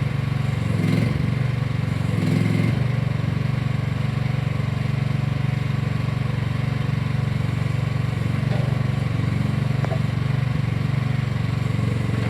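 Engine of a 2023 AGT KAT12 mini excavator running at a steady speed.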